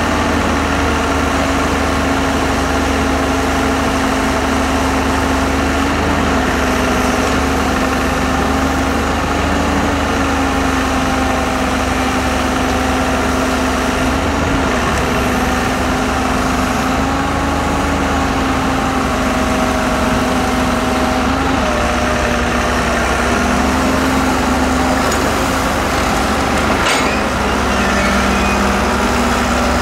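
Diesel engine of a Hyundai Robex 1300W wheeled excavator running steadily while it loads sand into a dump truck, its pitch stepping slightly up and down as the boom and bucket work. A single sharp click near the end.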